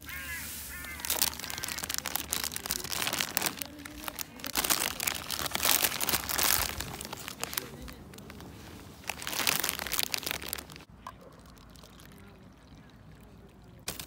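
Plastic croissant wrappers crinkling and rustling as they are handled and pulled out of a cloth bag, in repeated bursts for about ten seconds, then quieter until a fresh crinkle near the end.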